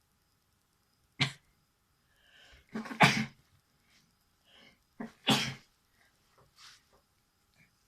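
A person sneezing three times: a short sneeze about a second in, then two louder ones about three and five seconds in, with softer breaths before and between them.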